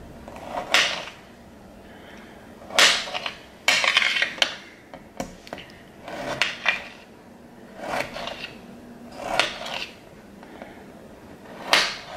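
Kitchen knife slicing through tomatoes and striking the cutting board, about seven separate cuts spaced a second or two apart.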